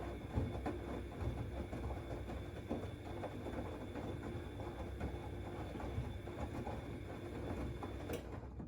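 Siemens Extraklasse XLS 140 A washing machine running a 90 °C boil wash: the drum turns with a steady motor hum while the wet rags slosh and thump irregularly. The sound cuts off suddenly with a click near the end.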